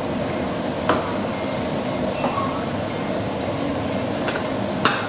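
Steady kitchen background hum, like an extractor or oven fan, with a few light clicks and knocks from a knife on a cutting board and utensils. The sharpest click comes near the end.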